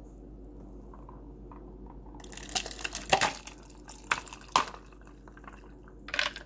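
Drink with ice being poured from a plastic shaker into a plastic cup: liquid splashing with several knocks of ice, starting about two seconds in, then one more short splash near the end.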